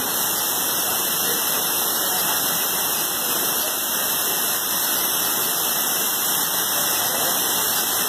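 Steady rushing noise of a waterfall and river in a rocky gorge, an even hiss with no breaks.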